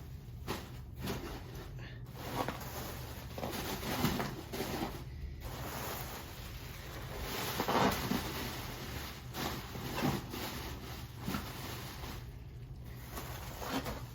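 Unboxing packaging being handled and put away: irregular rustling with occasional soft knocks and scrapes.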